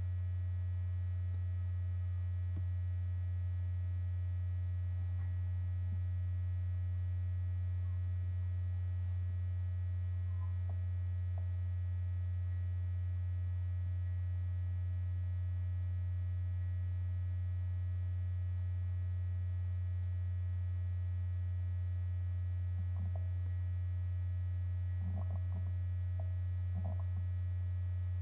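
Steady low electrical hum, like mains hum picked up by the recording. A few faint small clicks come near the end.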